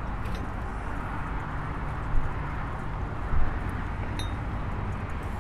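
Open-air market background noise: a steady low rumble with a general haze of sound, broken by two brief louder bumps about two and three and a half seconds in.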